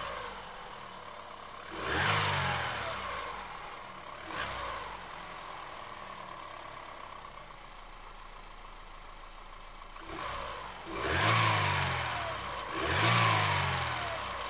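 Warm Chevrolet Aveo 1.5 petrol engine idling and revved in several short throttle blips, three of them strong, the pitch rising and falling back each time. The engine is being loaded to bring out the knock with a whistle that the owner hears when it is warm and under load; at idle it runs evenly.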